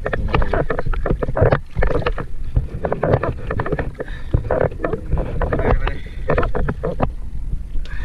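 Sea water slapping and splashing irregularly against a boat's outrigger float and hull, over a steady low wind rumble on the microphone.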